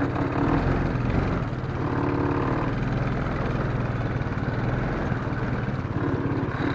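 A four-wheeler (ATV) engine running steadily as it is driven slowly behind a herd of cattle.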